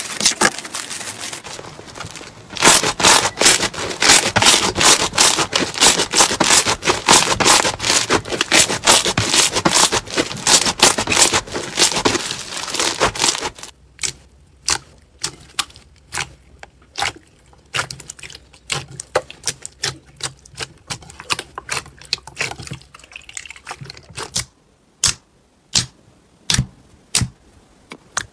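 Slime being stretched and pressed by hand, crackling and popping. For about the first half there is a dense run of crackles; then the sound drops suddenly and only scattered sharp pops and clicks follow.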